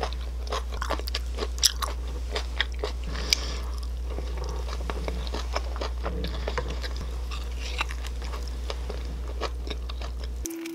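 A person chewing food close to the microphone: many short wet clicks and crunches. A steady low hum runs underneath and stops just before the end.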